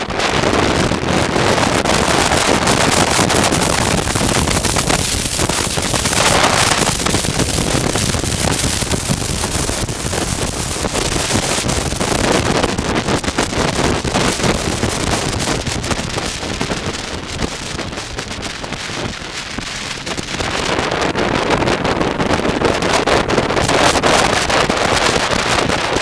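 Wind buffeting the microphone of a helmet camera on a moving motorcycle, with the bike's running engine underneath. The rush eases for a few seconds about three-quarters of the way through, then comes back up.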